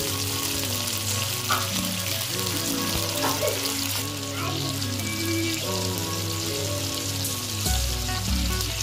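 Tomatoes, garlic and dried red chillies sizzling steadily in hot oil in an iron kadai, with background music playing underneath.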